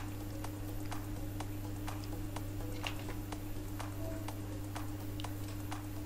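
Faint room tone: a steady low hum with a light tick repeating evenly about twice a second.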